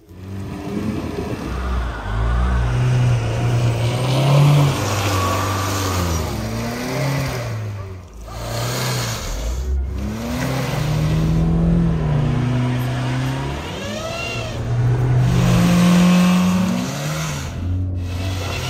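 Skoda Fabia's engine revving again and again, rising and falling, as its front wheel spins in deep mud with the car stuck. The sound cuts off abruptly a few times.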